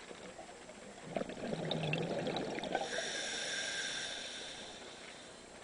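Scuba diver breathing through a regulator underwater: a gurgling rush of exhaled bubbles starting about a second in, then the hiss of an inhalation through the regulator that fades toward the end.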